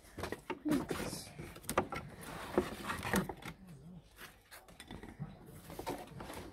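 Wooden pieces of a flat-pack bird table kit being handled and taken out of the box: an irregular string of light wooden knocks and clatters.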